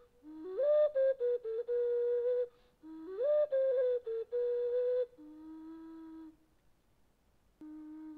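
Background music: a solo flute melody. Two phrases, each rising and settling on a long held note, are followed by a quieter lower held note, a short pause, and another low note starting near the end.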